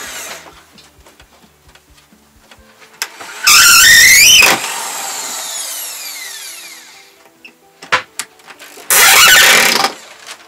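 Cordless drill run in two bursts of about a second each, about five seconds apart, on the wooden formwork boards. The motor's whine rises under load in the first burst and winds down after it. A few light knocks come between the bursts.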